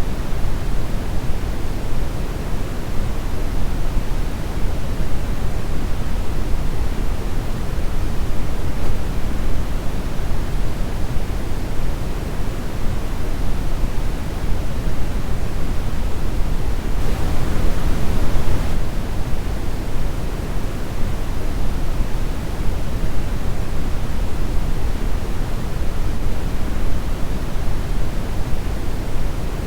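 Brown noise: a steady deep hiss with most of its weight in the bass, thinning out toward the highs. It turns briefly a little brighter for a second or two past the middle.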